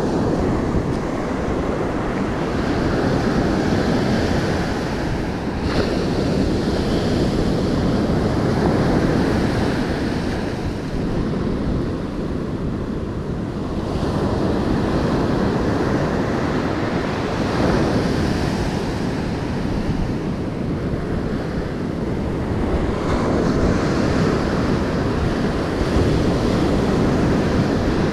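Ocean surf breaking on a sandy beach: a steady rush that swells and eases every few seconds as the waves come in, with wind buffeting the microphone.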